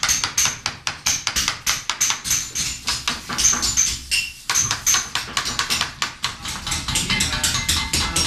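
Mallet striking a steel chisel into white stone in quick repeated blows, about three to four a second, each with a short metallic ring; the blows pause briefly about four seconds in.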